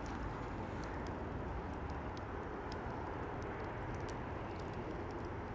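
Wood fire crackling in a fire pit: irregular sharp pops and snaps over a steady low background noise.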